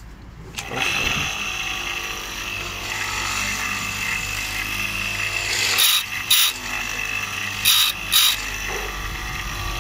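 Electric chainsaw-chain sharpening grinder starting up and running with a steady whine. Its wheel grinds the saw chain's cutters in four short bursts, two quick pairs about a second and a half apart.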